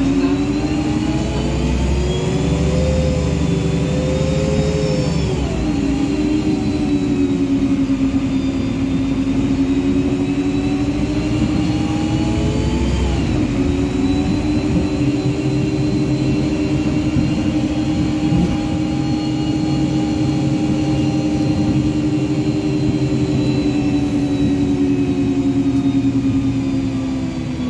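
Karosa B951E city bus heard from inside the passenger area: the engine and drivetrain whine climbs in pitch as the bus accelerates. The pitch drops twice, about five and a half seconds in and again around thirteen seconds, as the automatic gearbox shifts up. It then runs at a steady pitch and eases off slightly near the end.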